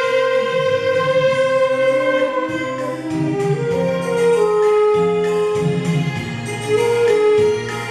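Saxophone ensemble playing a slow melody together in held notes, over a lower line that moves in steps.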